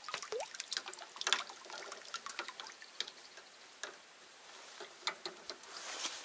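Small water drips and splashes with irregular light clicks and ticks.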